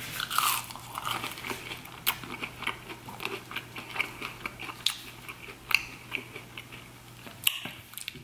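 Close-up chewing of a McDonald's Chicken McNugget: irregular crisp crunches and mouth clicks as the breaded nugget is bitten and chewed, with a fresh bite near the end.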